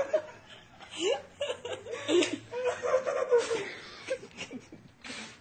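Laughter and chuckling right after a pie has been pushed into a man's face.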